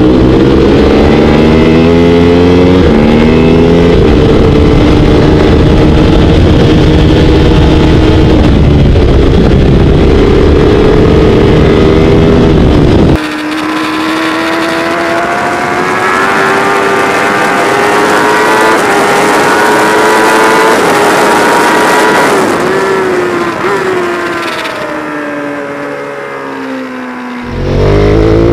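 Racing motorcycle engines heard from onboard at speed on a track: the engine note climbs with the revs and steps down at gear changes. The first part is a Ducati sportbike. About halfway through the sound cuts to a different bike with a thinner, higher note and less low end, whose pitch falls away near the end before another cut to a bike at full throttle.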